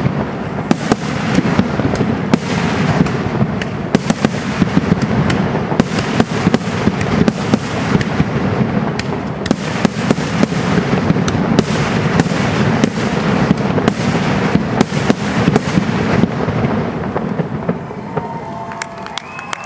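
Fireworks finale: a continuous barrage of aerial shell bursts, dozens of sharp bangs over dense crackling. It thins out and fades about seventeen seconds in.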